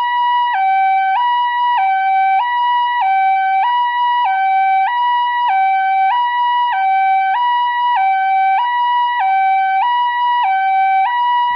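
Toy ambulance's electronic two-tone siren, a steady high-low nee-naw alternating about once every 0.6 seconds.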